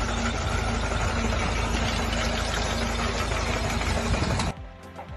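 An engine running loudly and steadily with a low hum, cut off abruptly about four and a half seconds in. A quieter stretch with a couple of sharp knocks follows.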